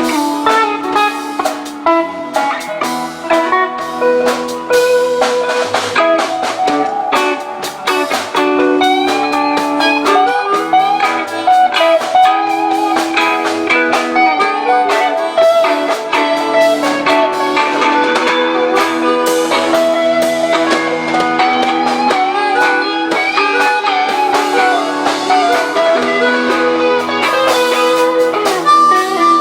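Live band playing an instrumental break: guitars and a drum kit, with a winding lead melody over the chords.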